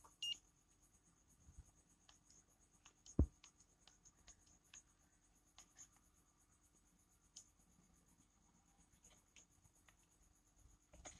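Near silence with a faint steady hum, broken by scattered light clicks from handling an infrared thermometer gun, one sharper click about three seconds in. A short high beep comes just after the start.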